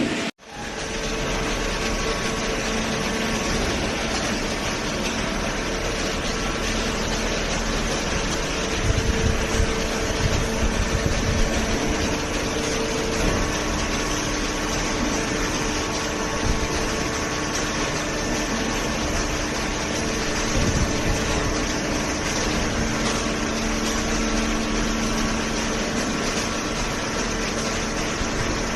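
Hydraulic baler machine running: a steady hum of its hydraulic pump motor, with some low knocks about nine to twelve seconds in. The sound cuts out for a moment right at the start.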